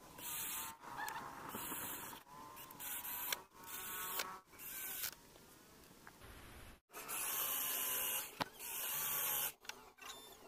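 Cordless drill-driver running in repeated short bursts of about half a second to a second each, driving screws through a steel butt hinge into wood.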